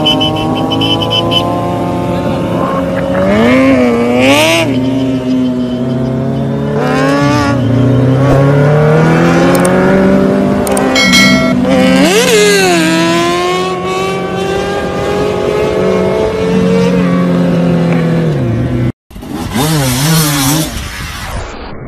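Motorcycle engines revving, the pitch rising and falling again and again. There is a sudden break near the end, then another engine revving.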